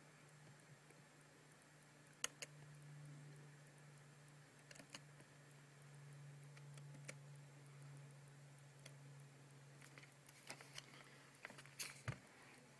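Near silence: a faint steady low hum with a dozen or so scattered light clicks, the sharpest about two seconds in and near the end.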